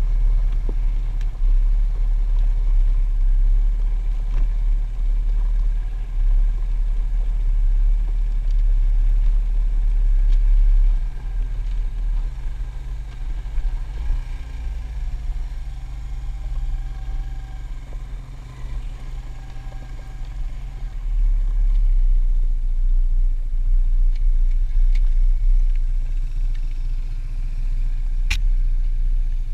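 Suzuki Ozark ATV engine running under way, heard through a heavy low rumble on the helmet-mounted camera's microphone. The sound eases for about ten seconds in the middle, then picks up again.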